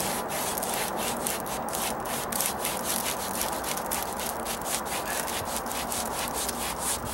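Paintbrush scrubbing stucco patch coating onto a rough, textured stucco column in quick repeated back-and-forth strokes, several a second: bristles rasping over the sandy surface to blend in a patch.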